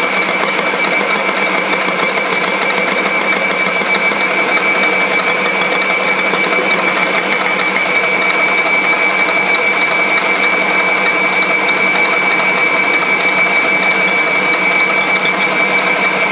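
Electric stand mixer running steadily at speed, its whisk beating egg whites into a meringue in a stainless steel bowl, with a steady high motor whine.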